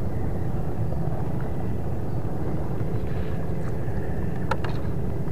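Steady low rumble of wind buffeting the microphone, with a few small clicks about four and a half seconds in as a soft frog lure is handled and changed.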